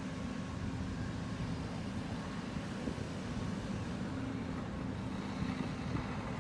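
Fire apparatus diesel engine running steadily, a low, even drone.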